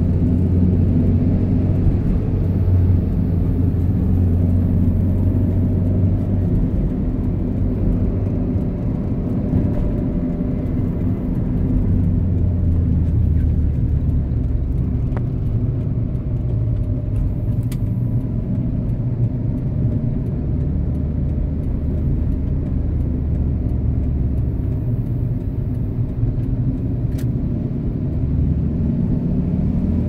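A car being driven: a steady low engine and road rumble, with two faint clicks, one about halfway through and one near the end.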